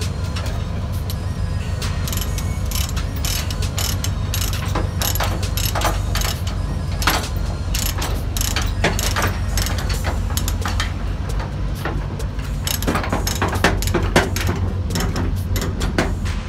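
Ratchet chain binder being cranked to tighten a load chain on a flatbed trailer: a steady run of quick, sharp pawl clicks, with chain links clinking, over a steady low hum.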